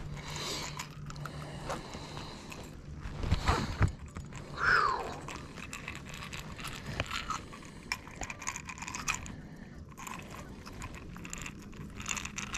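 Close-up clicks and rattles of fishing pliers working a crankbait's hooks out of a northern pike's mouth, with a short falling squeak nearly five seconds in.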